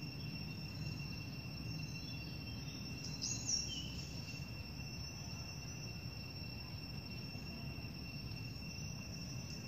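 Insects droning steadily in an even, high-pitched tone, with a brief high chirp about three seconds in, over a low background rumble.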